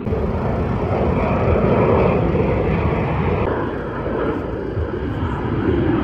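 Jet aircraft flying overhead at a distance, its engines giving a steady, loud rushing noise.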